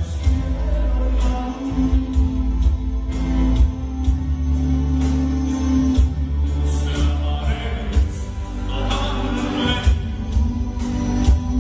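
Romantic ballad played by a live band: a steady bass line, sustained chords, and drums with regular cymbal strokes, with a male singing voice.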